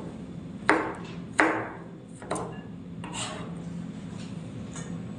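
Kitchen knife chopping vegetables on a cutting board: a few sharp chops with a short ring, the loudest two about a second in and a second and a half in, then lighter ones further apart.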